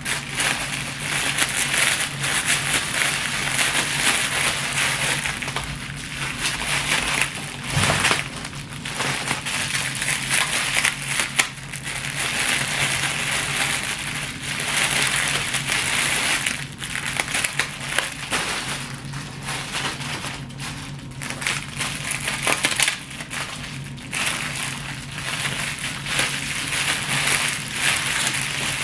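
Plastic packs of hard wax beads crinkling and crackling continuously as they are picked up, squeezed and stacked one after another.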